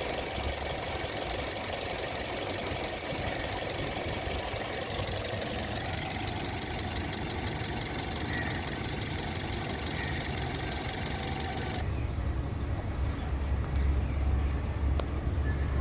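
Toyota Corolla engine running steadily at idle. About twelve seconds in, the high hiss drops away abruptly and the low hum grows stronger.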